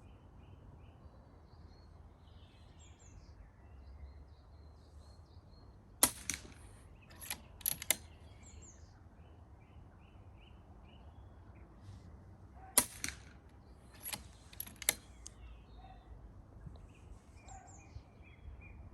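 Two muffled shots from a suppressed Daystate Red Wolf Midnight .177 PCP air rifle, one about six seconds in and one near thirteen seconds in, each followed by a few softer clicks. A low wind rumble and faint bird chirps run underneath.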